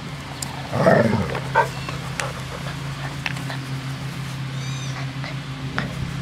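Golden retriever puppies playing with their mother, one giving a short loud yelp about a second in, followed by scattered small squeaks and yips. A steady low hum runs underneath.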